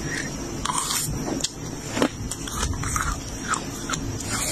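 Flaky freezer frost being bitten and chewed: a run of crisp, irregular crunches.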